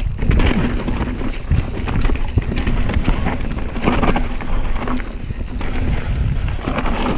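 Enduro mountain bike riding fast down a dirt forest trail: tyres rumbling over dirt and roots, with the bike clattering and knocking over bumps.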